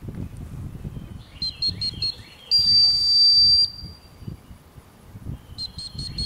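Dog-training whistle: a run of four quick toots, then a single long, loud blast, then four more quick toots near the end. The long blast is the sit command; the quick toots are the recall that brings the dog in.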